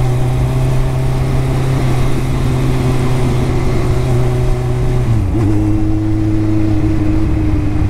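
Kawasaki superbike's engine and exhaust running steadily while cruising at city speed. The note drops a little in pitch about five seconds in as the revs fall, then holds.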